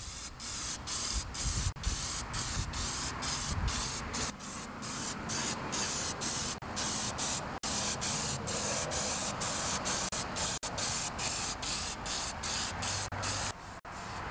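Aerosol can of black spray paint hissing in a long run of short spray bursts, broken by many brief gaps as the nozzle is released and pressed again.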